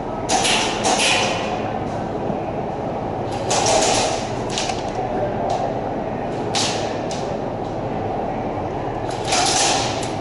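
Airsoft guns firing in short bursts across an indoor CQB arena, irregularly spaced, over the steady din of the hall.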